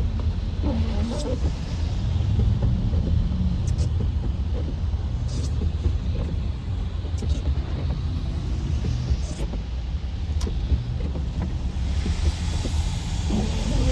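Road noise inside a car's cabin on a wet freeway: a steady low rumble of tyres and engine, with a few faint ticks and a hiss of wet spray rising near the end.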